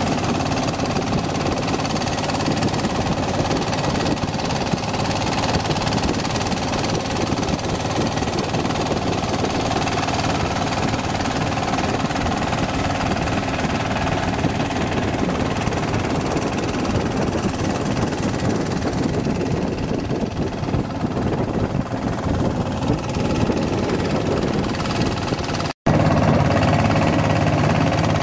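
Engine of a wooden motorboat running steadily under way, with wind and water noise. There is a short break near the end, after which it comes back a little louder.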